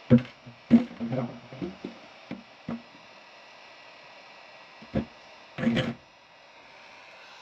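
Heat gun blowing with a steady hiss while a circuit board held in pliers knocks and rattles against a thin aluminium pan, shaking off components whose solder the hot air has softened. A run of sharp knocks fills the first three seconds, then one knock and a short clatter about five seconds in as the board is set down in the pan.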